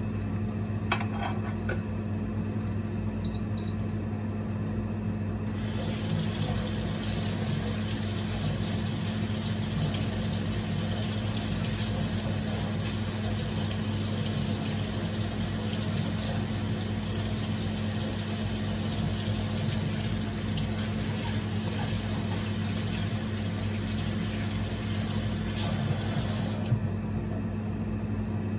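Water running from a kitchen tap into a sink. It is turned on suddenly a few seconds in, runs steadily for about twenty seconds, then is shut off, over a steady low electrical hum.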